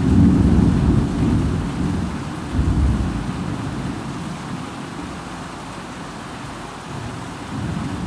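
Thunder rumbling over steady heavy rain. A loud low rumble breaks at the start, swells again about two and a half seconds in, then dies away under the even hiss of the rain.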